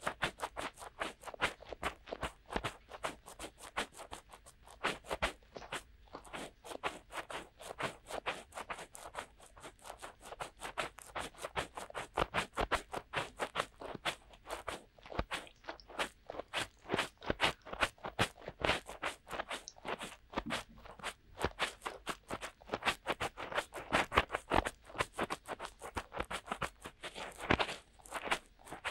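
Fingertips rubbing and scratching in both ears of a DuoPop 2.0 binaural microphone for ASMR finger ear cleaning: a continuous run of quick, scratchy, crackling strokes, several a second.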